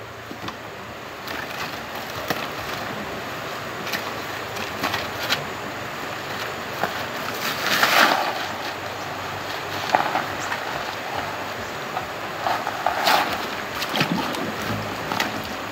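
Steady rushing outdoor noise with no engine running, broken by sharp knocks and clatters about eight, ten and thirteen seconds in as a small petrol water pump and its intake hose are moved about and set down.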